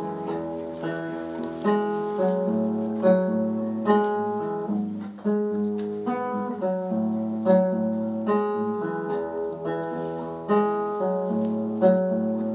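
Acoustic guitar played alone, a repeating pattern of picked single notes over held bass notes.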